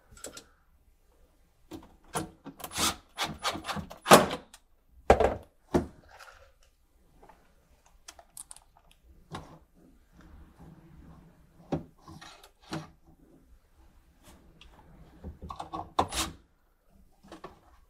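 A steel ball-bearing drawer slide clicking and knocking against a cabinet side as it is positioned, in a scattered run of sharp clicks and thunks. Near the end comes a short burst of a cordless drill driving a screw into the slide.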